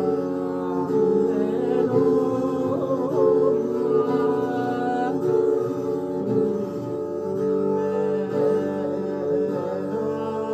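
A long-necked bowed string instrument of the Indian type playing a slow, wavering melody over steady sustained drone tones.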